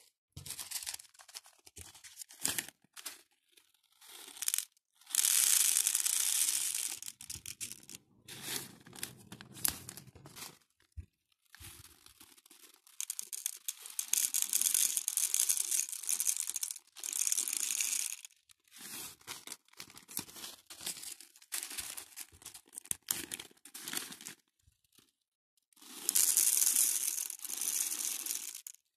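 Plastic zip-lock bags crinkling and pearl beads pouring and rattling into the compartments of a clear plastic grid organizer box. The sound comes in several bursts, the loudest a few seconds in, through the middle, and near the end, with small crackles and brief pauses between.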